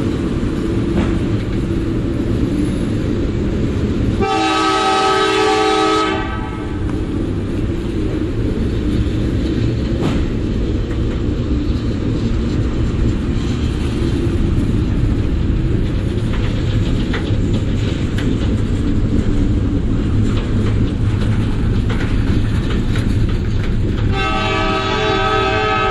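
Freight train passing at close range: steel wheels rumbling steadily over the rails with some clacking, and the diesel locomotive's engine audible as it goes by at the start. A multi-note train air horn sounds for about two seconds around four seconds in and sounds again near the end.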